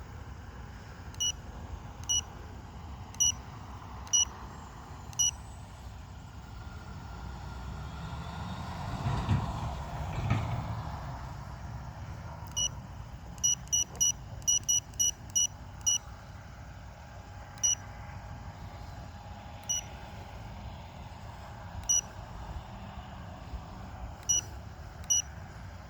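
Short, high electronic beeps from a LiPo battery cell checker being used on a drained 4000 mAh flight pack, about two dozen of them, irregularly spaced with a quick run of beeps in the middle. Wind buffets the microphone throughout, gusting stronger a few seconds after the start.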